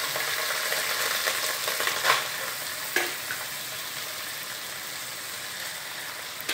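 Hot oil and fried cumin seeds sizzling under a heap of boiled rice just tipped into the pot, the hiss slowly dying down. A couple of light knocks about two and three seconds in.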